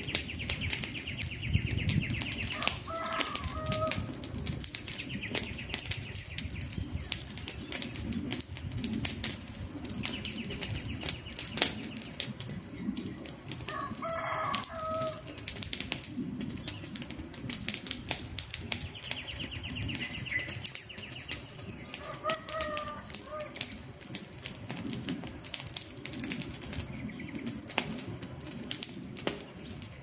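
Wood fire crackling and popping with many sharp snaps over the low, steady rush of the flames. Birds call in the background: a high trill about two seconds long comes four times, and a shorter, lower call comes three times.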